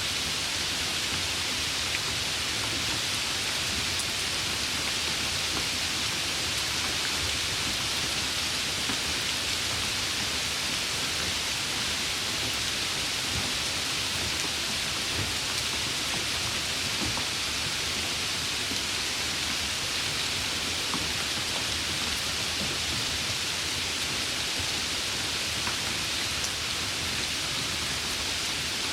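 Steady rain falling: a dense, even hiss with a few faint drop ticks.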